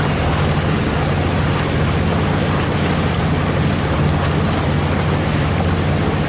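A motorboat's engine running at a steady speed with an even low hum, under a loud hiss of water rushing along the hull.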